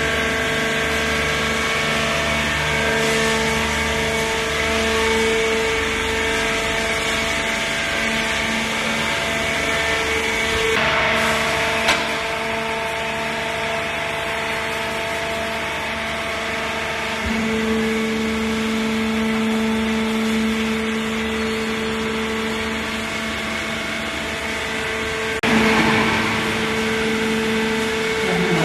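Hydraulic textile baler's pump unit running with a steady whine and hum. The tone shifts a few times, about a third of the way in, near the middle and near the end, with a short click just before the middle.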